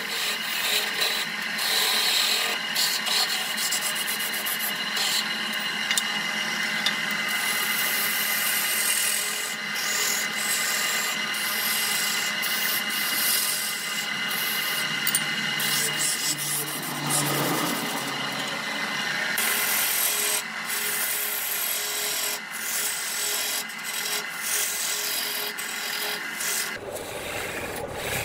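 A turning tool cutting into a spinning wooden vase form on a wood lathe: a continuous rasping scrape of steel on wood, with many small clicks and a steady whine from the running lathe underneath.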